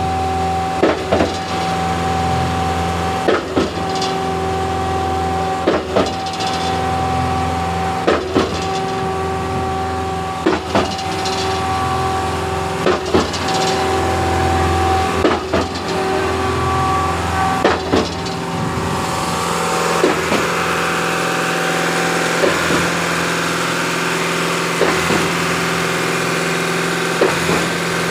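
Concrete pump running: a steady engine drone with a sharp knock about every two and a half seconds as the pump strokes. The knocks are weaker in the last third, where the deep hum eases and a higher hiss takes over.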